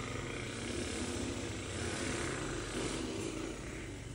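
Several horn players buzzing their lips loosely without the horn, lips lightly clamped together, a steady fluttering buzz from the group. It is a lip-buzz warm-up in which the light clamp raises the pitch.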